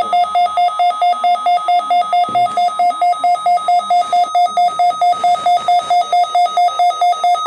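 Loud electronic emergency-alert alarm tone pulsing rapidly, about four to five beeps a second, the test sounding of the warning alarm.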